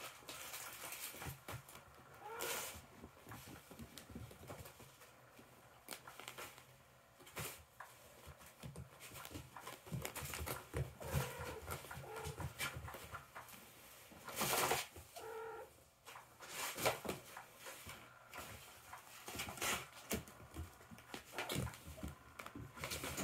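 Kittens playing: claws scratching and scrabbling on fabric and carpet with irregular rustles, and a short kitten mew about fifteen seconds in.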